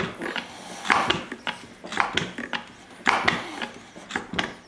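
Watch water-pressure testing tank being pumped up: a pump worked in strokes about once a second, with smaller clicks between, as the pressure climbs towards 6 kg/cm².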